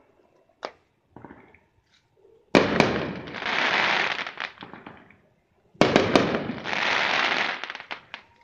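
Aerial fireworks bursting: a small pop, then two loud bangs about three seconds apart, each followed by a couple of seconds of dense crackling as the glittering stars fall.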